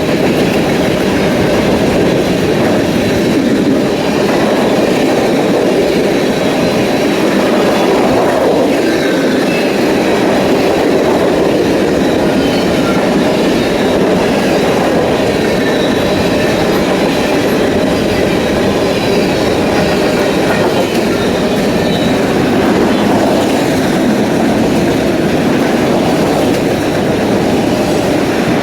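Freight train cars rolling past at speed: a steady, loud rumble of wheels on rail with clickety-clack and a faint high-pitched wheel squeal.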